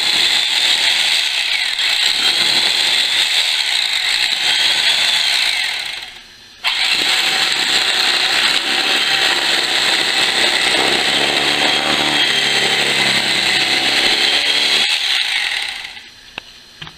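Electric carving knife running, its freshly sharpened serrated blades sawing back and forth through magazine paper. It stops briefly about six seconds in, then runs again until it switches off near the end.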